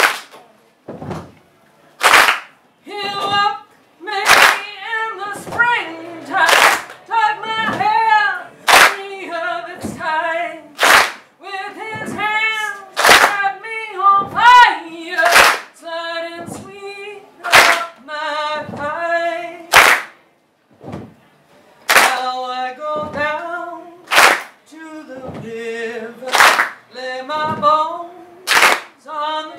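A woman singing a slow blues ballad a cappella in chain-gang work-song style, kept in time by a sharp clap or stomp about every two seconds.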